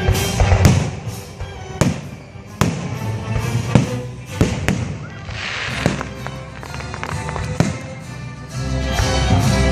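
Fireworks bursting overhead: about half a dozen sharp bangs at irregular intervals, with a brief crackle about five and a half seconds in. Music plays along the whole time.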